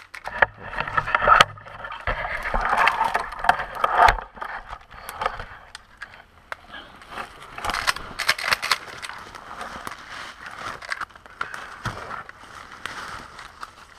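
Footsteps shuffling and crunching through dry fallen leaves and brush, with crackling leaves and scraping stems, heaviest in the first few seconds and again about eight seconds in.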